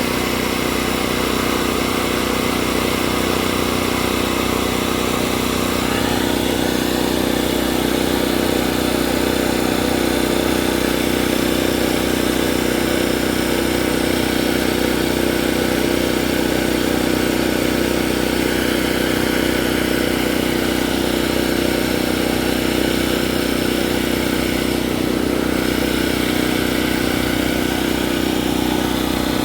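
An engine or motor running steadily at idle, an even mechanical hum that hardly changes.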